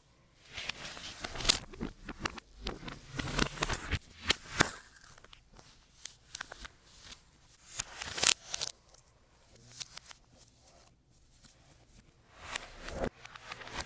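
Hands handling unboxing packaging: irregular rustling, crinkling and tearing of paper or plastic, with a few sharper clicks and taps.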